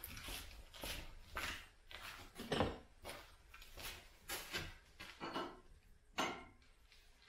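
Handling noises as a hydraulic hose on a compact tractor's rear remote is pulled and repositioned by hand: irregular rustles and light knocks of hose and fittings against metal, with one louder knock about two and a half seconds in.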